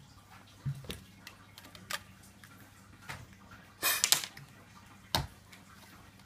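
A sharp puff of breath through a plastic toy blowgun about four seconds in, followed about a second later by a sharp knock, with a few faint clicks and taps before it.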